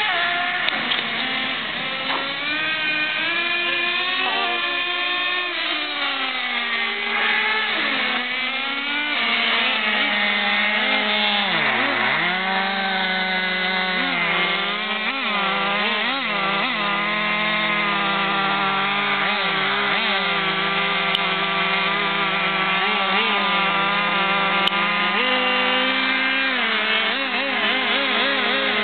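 Small nitro glow engines of radio-controlled cars running, their pitch rising and falling with the throttle, with more than one engine heard at once. There is a deep dip in revs about twelve seconds in and a fast wavering in pitch near the end.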